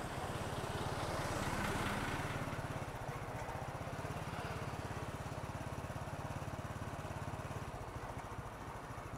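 Honda Super Cub's small single-cylinder four-stroke engine running while the bike rides along, with wind and road noise. The engine and wind noise ease a little after about three seconds.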